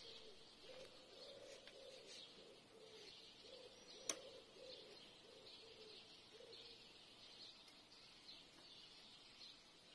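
Faint birds chirping, with a single sharp click about four seconds in.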